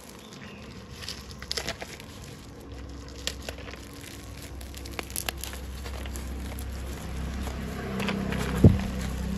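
Plastic and bubble-wrap packaging crinkling and crackling as a small drill-bit packet is pulled open by hand, with scattered crackles and one sharp knock near the end.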